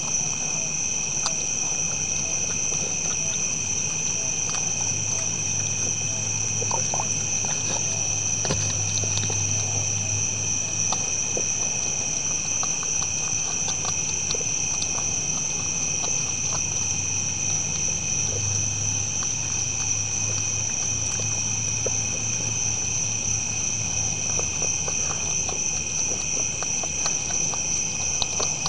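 A steady chorus of night insects trilling in several high, even bands. Scattered small clicks and crunches come from whitetail bucks feeding at bowls. A low hum comes and goes twice.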